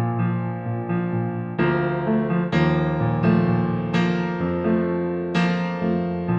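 Background music: a slow instrumental keyboard piece, with new notes or chords struck about once a second and left to ring.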